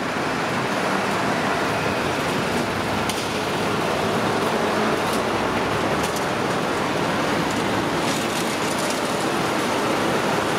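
Steady city traffic noise: an even wash of sound in which no single vehicle stands out.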